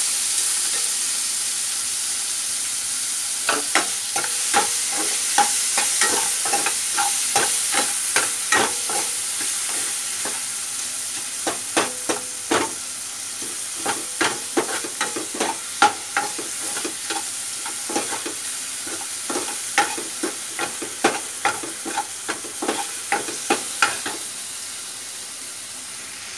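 Chopped tomatoes sizzling in hot oil and ghee in a steel pan, while a steel ladle stirs them, scraping and clicking against the pan many times. The sizzle slowly dies down as the tomatoes cook.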